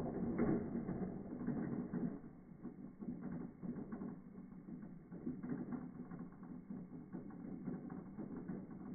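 Motorized Thomas & Friends toy train engines' motors whirring and wheels rattling on plastic track, in slow motion, so the sound is low and uneven.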